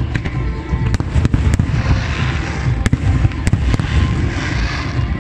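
Aerial firework shells bursting: about ten sharp bangs in quick, irregular succession over a continuous low rumble, with music playing alongside.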